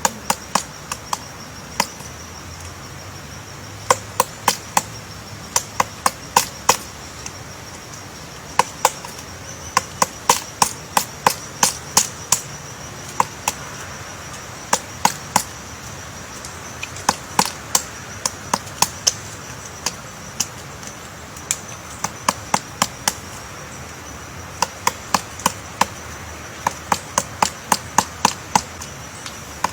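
Woodpecker pecking into wood: sharp, irregular taps in runs of several, a few tenths of a second apart, with short pauses between runs. A faint steady high-pitched tone runs underneath.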